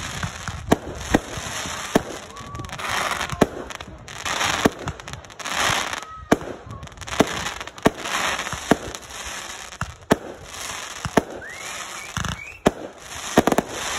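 Aerial fireworks being fired: about a dozen sharp bangs roughly a second apart, with stretches of hissing, crackling star bursts between them.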